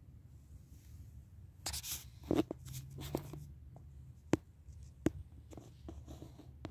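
Handling noise: scattered light clicks and rustles, the sharpest about two and four seconds in, over a low steady hum from an air conditioner running in the room.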